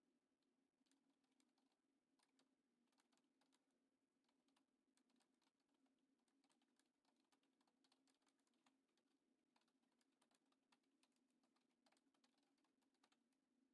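Near silence: a faint steady low hum with faint, irregular clicks throughout.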